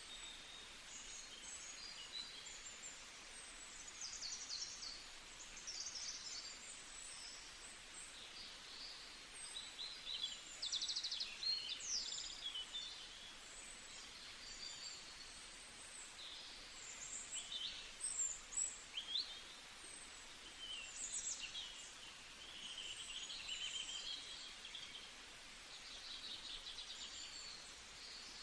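Several small birds singing and chirping at once: quick high trills, rapid buzzy notes and short rising and falling whistles, over a faint steady hiss.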